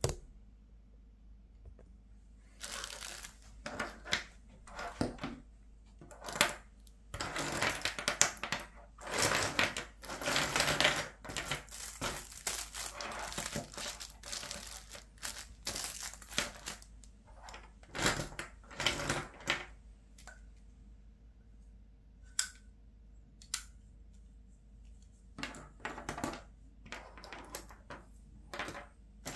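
Plastic ballpoint pens clicking and clattering against each other and the tabletop as they are slid and sorted by hand, with some rustling of their clear plastic wrappers. Busy and irregular for the first two-thirds, then only scattered clicks, picking up again near the end.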